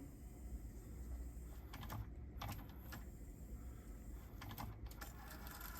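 Faint, scattered clicks, some in small clusters, over a low hum as a Sony TC-K222ESL cassette deck is worked with its remote control.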